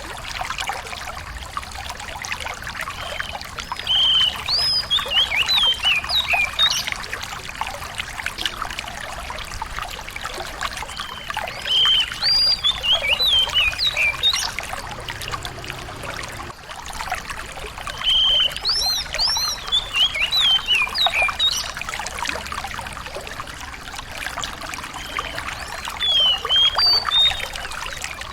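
A small songbird singing phrases of quick whistled notes that rise and fall in pitch, four phrases about seven seconds apart, over a steady trickle of flowing water.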